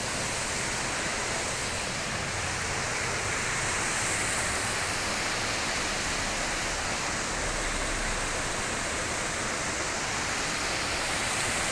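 Mountain river water rushing steadily, a continuous even murmur of flowing water.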